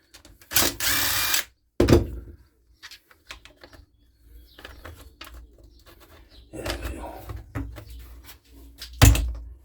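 Bench work on a small two-stroke strimmer part. About half a second in comes a hissing burst lasting about a second, then a sharp knock. Later there is scraping and rattling of tools and metal parts, and a loud knock near the end.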